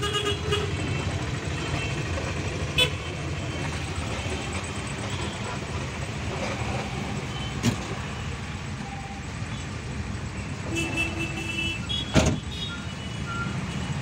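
Steady rumble of a bus's engine and road noise heard from inside the cabin. Vehicle horns honk near the start and again around eleven seconds in, and a few sharp knocks sound, the loudest about twelve seconds in.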